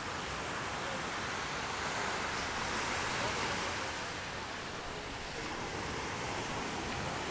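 Small waves breaking and washing up a sandy shore: a steady surf rush that swells about two to three seconds in and eases off again.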